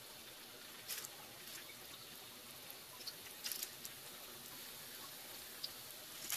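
Cooking oil sizzling faintly in a hot frying pan as raw gyoza dumplings are set into it, with a few sharp pops and crackles, the loudest about a second in, around three and a half seconds in, and near the end.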